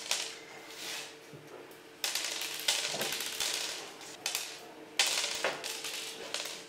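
Dice clattering and rolling on a hard surface: several bursts of rattling clicks, over a faint steady hum.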